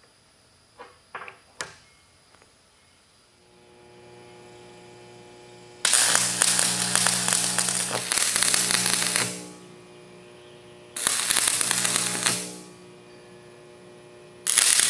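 A few light clinks of steel blocks set down on a steel table, then a steady electrical hum. A MIG welding arc crackles in three bursts of one to three seconds each as the blocks are welded together.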